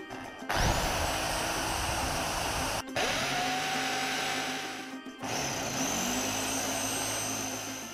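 Electric drill running three times in quick succession, drilling through perforated steel mesh into a wooden block. Each run starts with a rising whine as the motor spins up, then holds steady for about two seconds before stopping.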